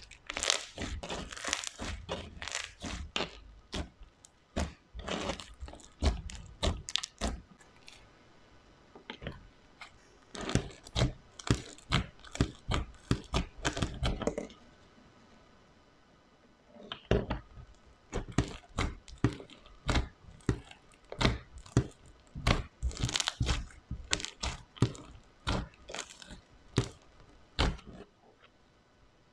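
Slime being squeezed, stretched and pressed by hand, giving off dense runs of crackling clicks and pops in three bursts with short pauses between.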